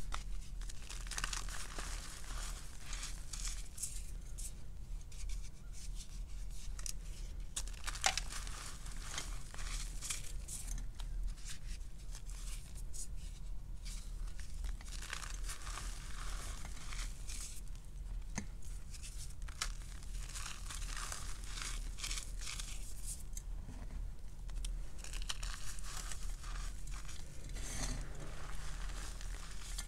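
Hands crushing and squeezing crumbled gym chalk and cornstarch in a heap of loose powder: dense, continuous crunching and crackling, with one sharper snap about eight seconds in.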